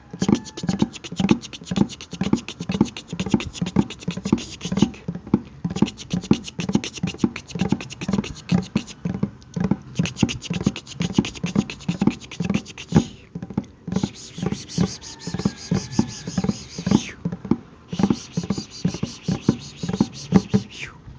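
Close-miked ASMR mouth sounds: a quick, uneven run of wet pops and clicks, several a second.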